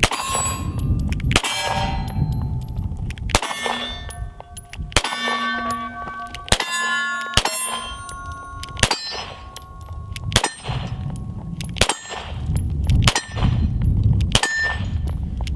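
Compact semi-automatic pistol fired about fifteen times at an unhurried pace, roughly one shot a second. Many shots are followed by the ring of struck steel targets, at several different pitches.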